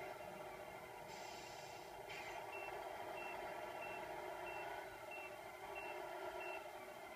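Tamiya MFC-01 sound unit on an RC Scania R620 truck playing its diesel engine sound through a small speaker, with a hiss about a second in and then seven short high reversing beeps at an even pace of roughly one and a half a second: the truck is backing up.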